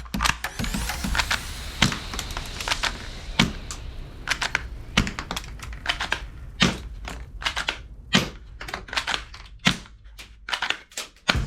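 Plastic toy guns being handled and worked: a fast, irregular run of sharp plastic clicks and clacks, several a second.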